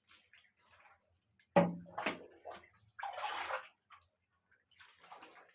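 Water splashing and sloshing during a hair wash, with a sharp knock about a second and a half in and a short rush of water about three seconds in.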